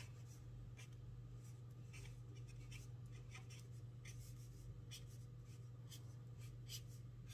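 Pen writing on paper: faint, short, irregular scratches of the tip as letters are formed, over a steady low hum.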